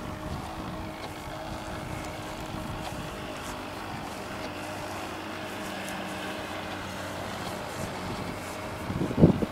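Radio-controlled speedboat's small motor running at low throttle as the boat moves slowly, a steady hum with a few faint tones. About nine seconds in, a brief loud buffet of sound.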